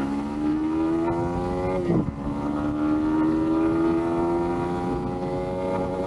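Yamaha MT-15 V2's 155 cc single-cylinder engine accelerating hard, its pitch climbing steadily. The pitch dips briefly about two seconds in as the rider shifts up a gear, then climbs again.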